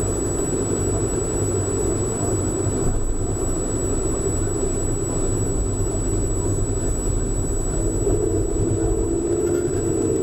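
Car interior driving noise from the dashcam's built-in microphone: steady engine and road rumble, with the engine note rising a little about eight seconds in, and a thin high whine over it.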